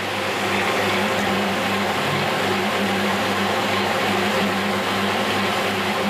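SC43D double-brush carpet washing machine running: a steady electric-motor hum under an even rushing noise from the spinning brushes.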